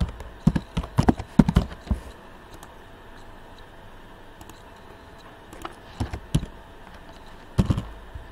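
Typing on a computer keyboard in short runs of keystrokes: a quick flurry over the first two seconds, then a few more keys around six seconds and again near the end.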